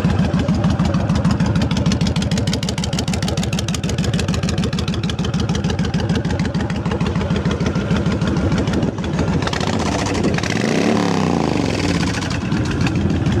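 2005 Honda VTX1300C's liquid-cooled 1300 cc V-twin idling steadily through an aftermarket exhaust, with one brief rev of the throttle about ten seconds in. It runs smoothly, with no mechanical noise that the seller can hear.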